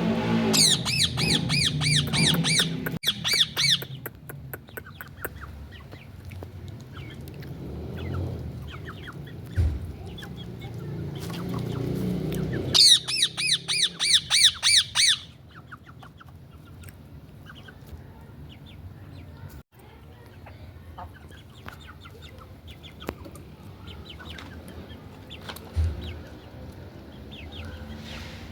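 Indian ringneck parakeet squawking in two bouts of rapid, repeated shrill calls, about three a second: one near the start and one about halfway through. Fainter short chirps come in between.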